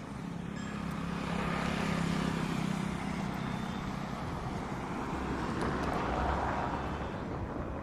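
A motor vehicle passing: a low engine hum with tyre and road noise that swells and fades, with a second swell later on.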